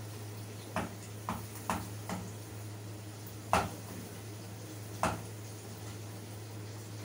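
A utensil knocking against a cooking pot about six times at uneven intervals, the two loudest knocks coming just past halfway and about two-thirds of the way in, over a steady low hum.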